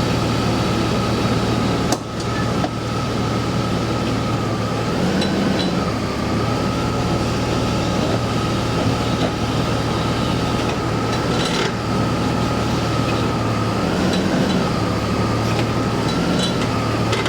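BMW E39 530i's 3.0-litre straight-six idling with a steady whine, its note dipping and recovering twice as the automatic transmission is shifted between gears. Two sharp metallic clicks come through, the tinkling on gear selection that the owner traced to a worn driveshaft centre bearing and flex disc (guibo).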